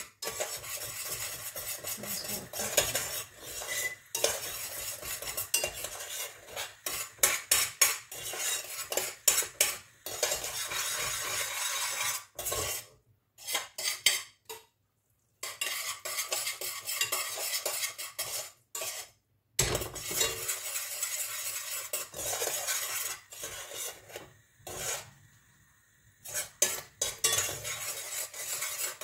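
A spoon scraping, stirring and clinking against a cooking pan as the curdled milk mixture is scooped out, in irregular strokes broken by a few abrupt silent gaps.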